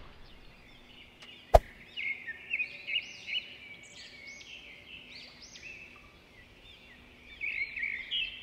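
Small birds chirping: a run of short rising-and-falling chirps, with a single sharp click about a second and a half in.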